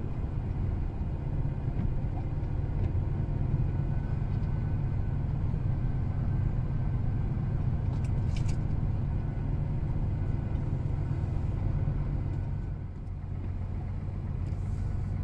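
Steady low drone of a heavy diesel engine, heard from inside a lorry's cab while a tractor tows the lorry on a rope, dipping briefly near the end.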